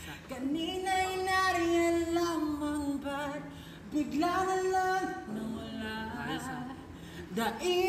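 A solo singing voice holding long notes with vibrato, in three phrases with short breaks between them.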